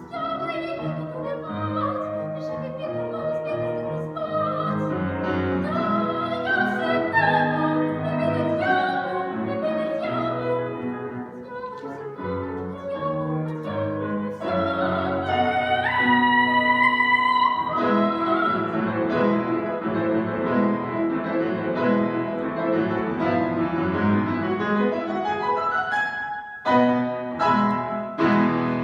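A girl singing in a classical operetta style with piano accompaniment. Her voice moves from note to note and holds one long high note about 16 seconds in.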